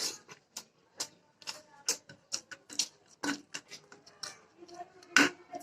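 A person chewing chicken and rice: a run of short, wet mouth clicks and smacks, several a second, with a louder smack about five seconds in.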